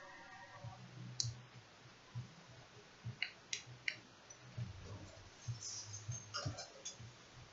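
Faint scattered clicks and light taps as hands press around the edges of a newly fitted laptop touchscreen panel, a few isolated clicks and then a short cluster near the end.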